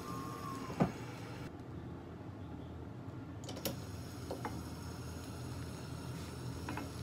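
Egg setting in a rectangular tamagoyaki pan over a lit gas burner, a steady low hiss, with a sharp knock about a second in and a few light clicks later.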